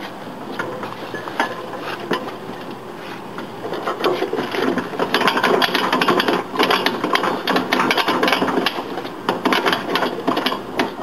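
Steel snow plough mount rattling and clattering as it is pushed forward and its mount bar slides into a van's front receiver hitch: a few separate knocks, then about four seconds in a dense run of metal knocks and rattles that goes on until near the end.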